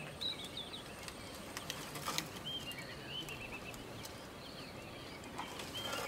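A bird singing a short repeated phrase, a high whistled note followed by a quick run of four or five notes, about every three seconds. A few sharp clicks sound about two seconds in.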